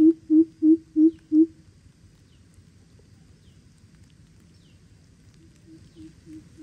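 Greater coucal's deep hooting call: a fast run of low hoots, about three a second, that stops about a second and a half in. A softer run of the same hoots starts near the end.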